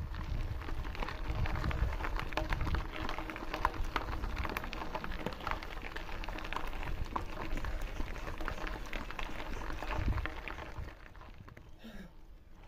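Mountain bike tyres rolling over a gravel track, a dense crackle of small stones with wind rumble on the microphone. About eleven seconds in it turns quieter as the bike rolls onto paving.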